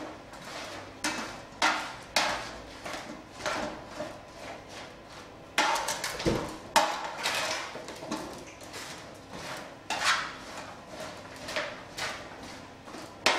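A large spoon scraping and clanking against a roasting pan as sliced potatoes are tossed in olive oil and seasoning. The strokes come in an uneven run, about one every half second to a second.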